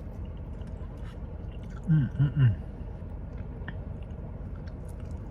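A person chewing a nem nuong roll, with faint wet mouth clicks and a short hummed "mmm" about two seconds in.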